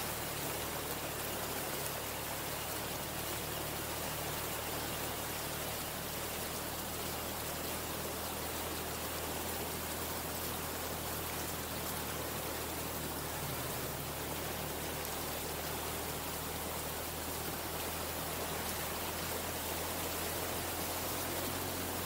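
Steady rush and splash of water churned up by a pickup truck's wheels as it wades through shallow floodwater, with a low, even hum underneath.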